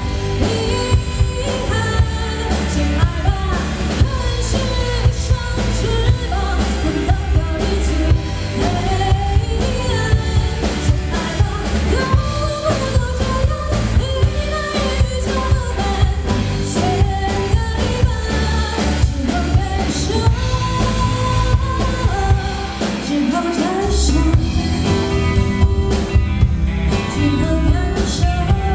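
Rock song with a sung lead vocal over drum kit, bass and guitar; the low end drops out briefly late in the passage before the full band comes back in.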